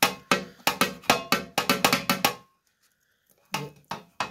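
A knife chopping through pizza and striking the metal pizza pan beneath it: a quick run of sharp knocks with a short metallic ring, about five a second. They stop about two and a half seconds in, and two or three more follow near the end.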